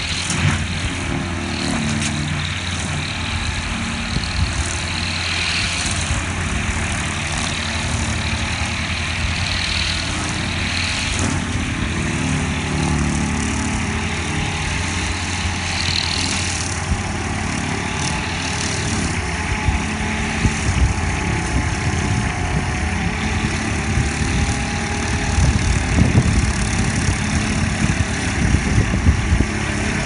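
John Deere skid steer's diesel engine running steadily while its 72-inch skid steer rotary mower cuts through tall grass, with a few sharper spikes in the second half.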